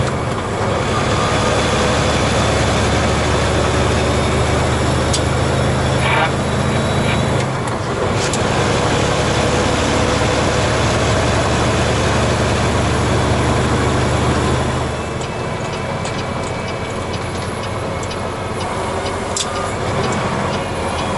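A semi truck's diesel engine pulling steadily under road noise inside the cab. The engine note breaks briefly about seven to eight seconds in, then drops away about fifteen seconds in, leaving mainly tyre and road noise.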